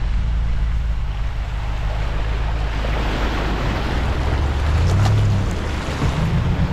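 Muddy water surging and splashing along the side and wheels of a Nissan Patrol Y62 four-wheel drive as it pushes through a flooded stretch of dirt track, over a steady low rumble.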